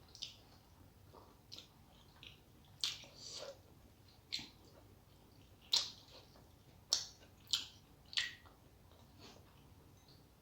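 Close-miked eating sounds: short, wet, sticky clicks and smacks of a mouth chewing rice and curry, coming irregularly about once a second, some louder than others.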